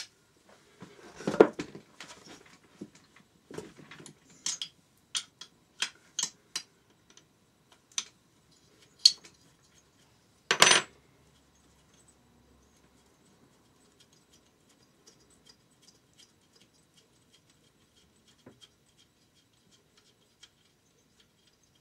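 Steel spanner and nuts clinking on the engine's cylinder barrel studs as the lower barrel nuts are worked loose, a run of sharp metallic clicks with one louder clink about ten seconds in, then only faint light ticks.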